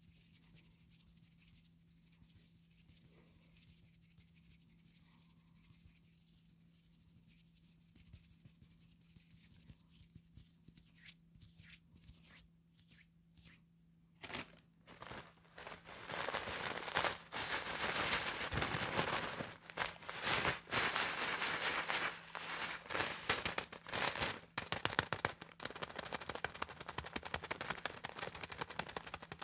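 Comb teeth scraped over sheets of calendar paper in rapid scratchy strokes. The scratching is faint and sparse at first, then turns dense and much louder about halfway through.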